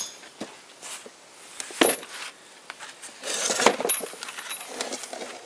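Metal-on-metal work on a GM Ecotec engine's aluminium lower crankcase: a hammer strikes a sharp tool wedged in the seam, giving one ringing metallic ping right at the start and another knock about two seconds in. Around three and a half seconds in comes a brief cluster of metal clinks and scraping as the aluminium part is worked loose.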